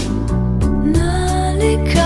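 Music: a slow Thai pop ballad with band accompaniment. A melody line enters partway through and climbs higher about a second in.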